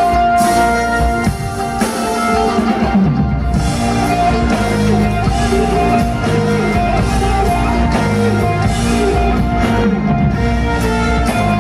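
Live rock band playing: electric guitar over a drum kit and bass, loud and steady.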